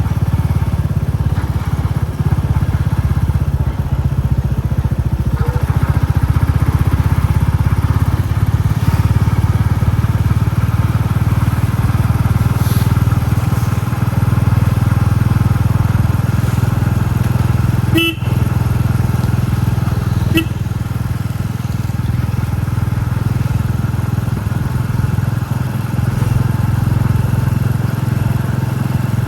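Royal Enfield Classic 350's single-cylinder four-stroke engine thumping steadily as the bike rides along. A horn beeps briefly twice, a couple of seconds apart, in the second half.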